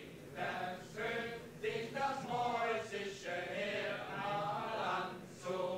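A group of men singing together, with held, wavering notes.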